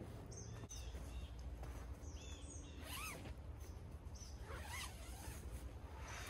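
A backpack and other camping gear being handled at a tent doorway, with two short zipper-like sweeps about three and five seconds in, over a steady low rumble.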